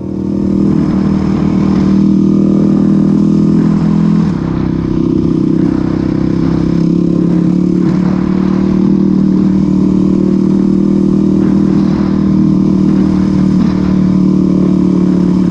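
Dirt bike engine running steadily while riding along a dirt trail. The engine note shifts about four seconds in as the throttle or gear changes, then holds steady again.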